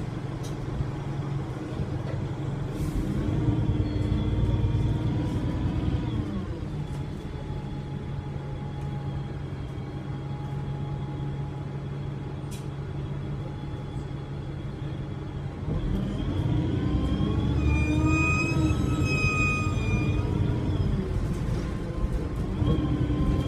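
Alexander Dennis Enviro300 bus engine running with a loud, high turbo whistle over it. It eases off about six seconds in and runs quieter for a while. Then, about two-thirds of the way through, it pulls hard again: the engine gets louder and the turbo whistle climbs in pitch.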